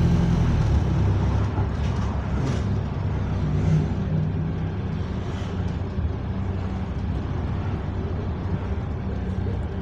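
Diesel engine of an AL SLS8 bus running as the bus drives along, heard from inside the passenger saloon as a steady low engine drone. The exhaust has a slight blow, which the uploader calls a slightly burst exhaust.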